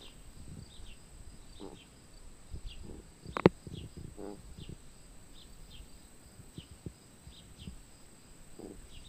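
Outdoor summer ambience: a steady high insect drone with faint chirps repeating every second or so. One sharp click about three and a half seconds in.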